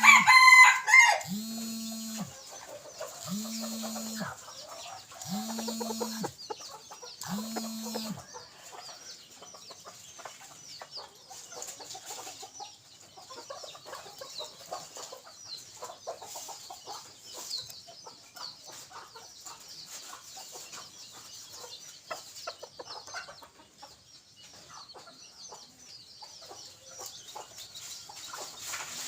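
Decoy jungle fowl rooster crowing once at the start, then faint clucking. Five even low notes, about one every second and a half, run under the first eight seconds.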